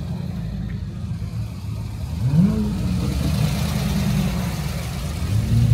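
Car engine running with a steady low rumble. Its pitch rises as it revs about two seconds in, and again near the end.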